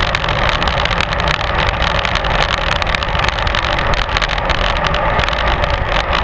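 Steady wind and road noise on a bike-mounted camera riding in a cycling pack: air rushing over the microphone, with a constant fine crackle of tyre and road vibration through the mount.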